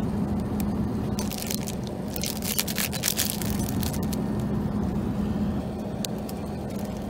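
Plastic bread-roll wrapper crinkling in short bursts as it is handled, mostly in the first half, over the steady drone and low hum of an Airbus A380 cabin in flight.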